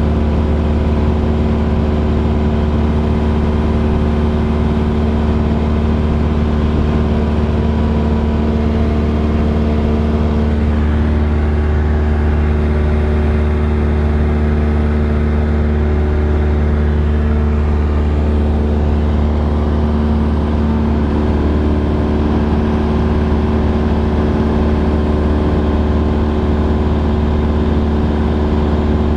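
Cessna 172R's four-cylinder Lycoming engine and propeller running steadily in flight, heard from inside the cabin as a loud, even drone with a strong low hum.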